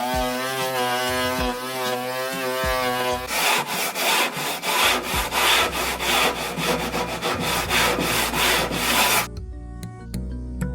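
Electric sander running with a wavering motor whine, then sanding grit scraping against the boat's hull in rapid, uneven strokes. Near the end this gives way to soft background music.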